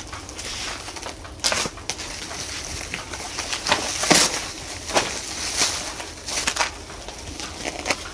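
Irregular knocks, scrapes and rustles, with a louder scrape about four seconds in.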